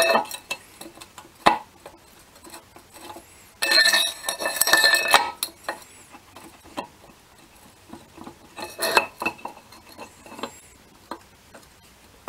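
Metal clinking and rattling as a slotted steel holding tool is worked down over the prop shaft and lined up inside an OMC Cobra sterndrive gearcase. Scattered sharp clinks, with a longer ringing rattle about four seconds in and another cluster of clinks about nine seconds in.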